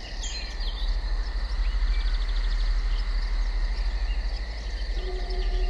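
Woodland ambience of birds chirping and insects, with a fast ticking trill partway through, over a deep pulsing low drone. About five seconds in, a held musical tone enters.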